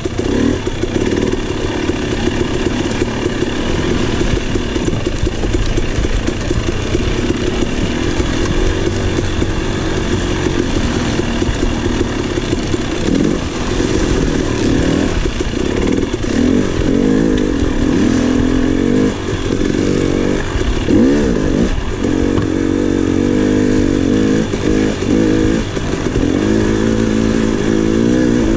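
KTM 300 XC two-stroke dirt bike engine under way on trail, its pitch rising and falling as the throttle is opened and rolled off, with several quick blips between about 13 and 22 seconds in.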